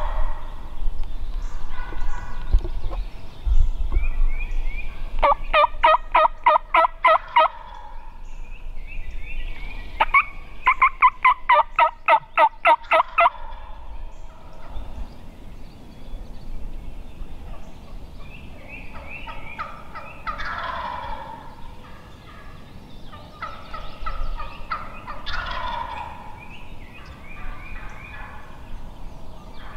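Wild turkey gobblers gobbling repeatedly. Two runs of rapid, evenly spaced yelps come about six and about eleven seconds in.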